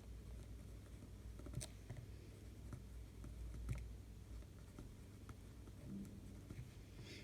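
Quiet room with a low steady hum and a few soft clicks and taps, two sharper ones about one and a half and three and a half seconds in, and a short rustle near the end.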